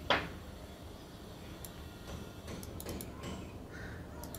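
Computer mouse clicking several times, faint, over a steady low background hum. A brief sharp swish that drops in pitch comes right at the start and is the loudest sound.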